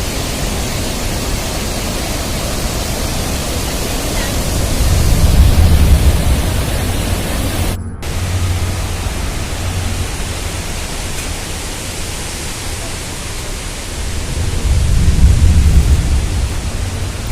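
Steady loud rushing of a waterfall, with two swells of low rumble about five and fifteen seconds in. The sound drops out for a split second near the middle.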